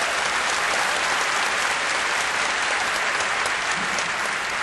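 Lecture audience applauding: a steady mass of hand claps, easing slightly near the end.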